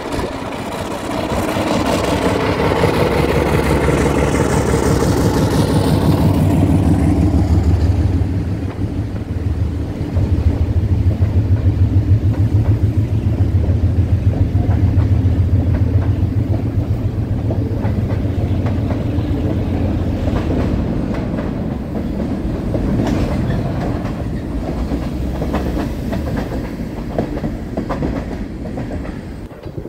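Diesel freight locomotive passing close below, its engine loud for the first several seconds. A string of freight cars then rolls by with a steady, evenly pulsing rumble that fades away in the last few seconds.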